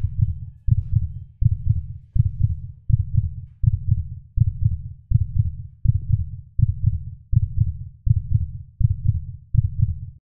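Heartbeat sound effect: a steady, low beat at about 1.4 beats a second that cuts off suddenly near the end.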